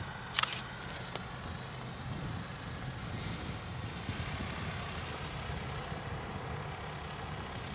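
Airship engines running at low power as the blimp moves across the ground, a steady low rumble. About half a second in there is one short, sharp hiss.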